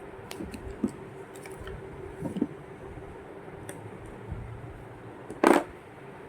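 Light clicks and taps of multimeter probes and small components being handled, with one louder knock about five and a half seconds in, over a faint steady hum.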